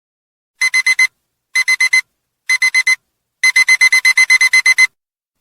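Digital alarm-clock beeping, a high electronic tone: three groups of four quick beeps about a second apart, then a fast run of about a dozen beeps, signalling that the countdown has reached zero.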